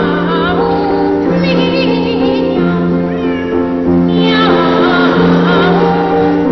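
Two boy trebles singing a duet in sliding, warbling phrases over steady piano chords, one phrase after another.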